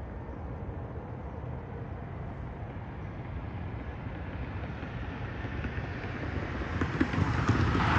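An Amtrak passenger train led by two Siemens ALC-42 Charger diesel locomotives approaches from a distance. Its low rumble grows steadily louder over the last few seconds.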